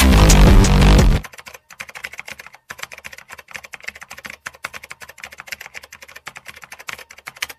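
Electronic dance music cuts off about a second in, followed by a rapid run of keyboard-typing clicks: a typing sound effect that accompanies on-screen text typing out letter by letter.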